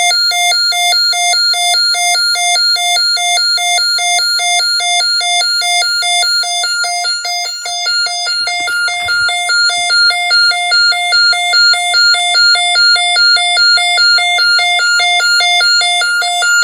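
Snap Circuits alarm horn sounding a supervisory signal: a buzzy electronic tone pulsing evenly, about three beeps a second.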